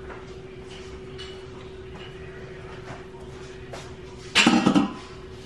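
Metal cookware handled on a kitchen counter: a short rattling clatter about four seconds in, over a steady electrical hum.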